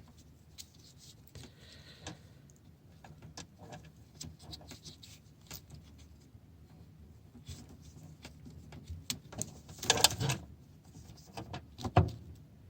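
Faint clicking and rustling of electrical wires and ring terminals being handled and gathered together, with a louder clatter about ten seconds in and a sharp knock shortly after.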